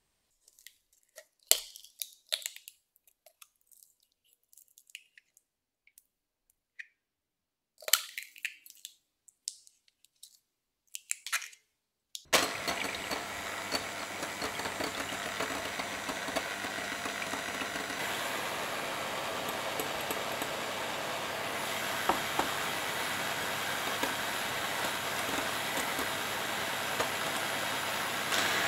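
Electric hand mixer switched on about twelve seconds in, its beaters whipping egg whites in a glass bowl to a meringue with a steady whir. Before that, a few scattered light clicks and knocks.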